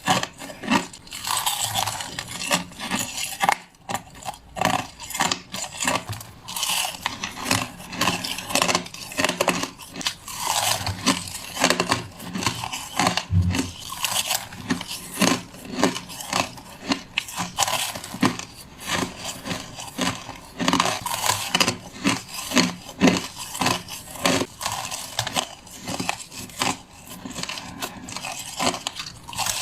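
Crushed ice being bitten and crunched close to the microphone: a continuous run of irregular sharp cracks and crunches.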